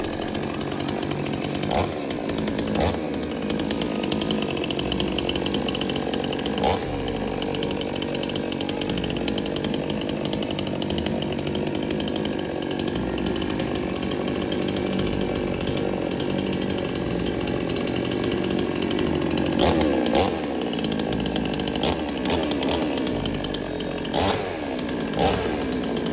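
ZY-CRP88 two-stroke chainsaw running steadily, with several short bursts of higher revs spread through.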